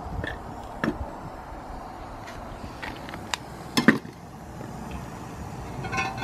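A metal cooking pot and its lid handled and set over a small burner, giving a few light ticks and knocks. One knock comes about a second in and the loudest pair of clanks near four seconds.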